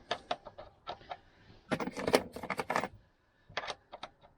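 Metal hand tools clinking and clicking: steel sockets being picked through to find the size that fits a seat-belt mounting bolt. The clicks come in several quick clusters with short pauses between them.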